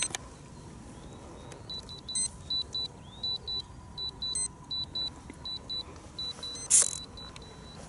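A run of short, high electronic beeps in singles and quick pairs from radio-control gear as a small electric model plane is powered up and its receiver bound to the transmitter. There is a click at the start and a brief handling rustle near the end.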